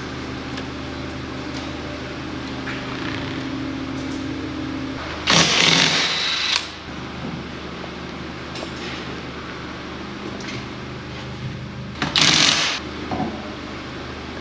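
Electric-hydraulic two-post car lift's pump motor running with a steady hum as the car is raised, stopping about five seconds in. Two loud bursts of noise, each about a second long, follow about five and twelve seconds in while a wheel is being taken off.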